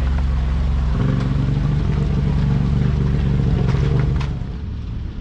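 Off-road vehicle engine running at low speed. Its pitch steps up about a second in, then the sound drops away near the end.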